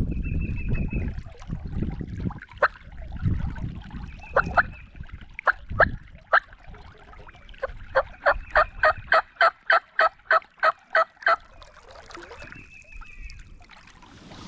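Hand-worked turkey call yelping to locate a gobbler: a few separate yelps, then a fast even run of about fifteen yelps a little past the middle. No turkey gobbles back.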